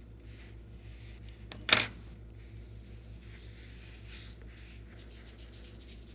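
Slime being handled and mixed: a sharp click or tap a little under two seconds in, with a few smaller ticks just before it, then faint soft crackly rustling.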